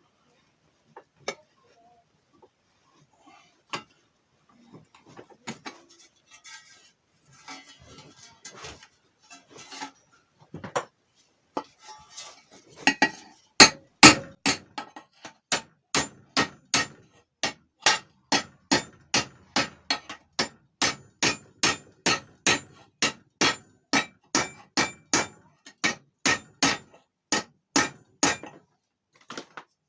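Hammer blows on the steel of a shovel under repair. There are a few scattered knocks and handling noises at first. From about halfway in, the blows come in a steady run of two to three a second, then stop shortly before the end.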